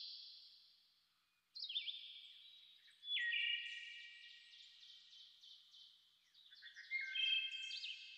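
High, clear chime tones, struck in loose clusters about four times, each tone ringing on and slowly fading, with nothing in the low range.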